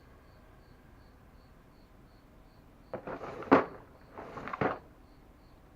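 A cricket chirping steadily, about three chirps a second. Two bursts of rummaging and clatter come about halfway through, the first the louder.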